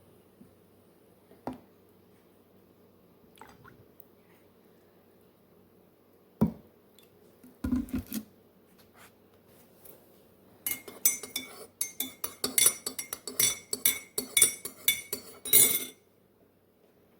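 Kitchen clatter: a few scattered knocks, then about five seconds of rapid clinking of dishware and utensils with a ringing note. It stops sharply about a second before the end.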